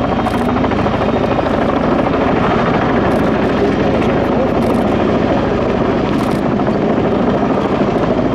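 Boeing Vertol 107-II (Kawasaki KV-107-II) tandem-rotor helicopter flying past, loud and steady: the rapid, even beat of its two rotors over the whine of its twin turboshaft engines.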